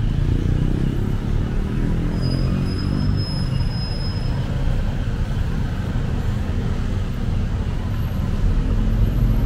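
Steady city road-traffic rumble, with a faint high whine for about two seconds near the middle.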